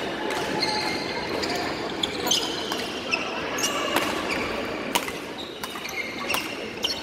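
Badminton rally: sharp racket hits on the shuttlecock, several in a row about a second apart, with shoes squeaking on a wooden court floor.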